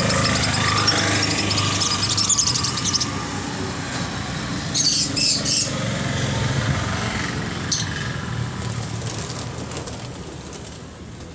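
Caged small birds chirping: rapid twittering for the first few seconds, then a few louder, sharper chirps around the middle. A steady low hum sits underneath.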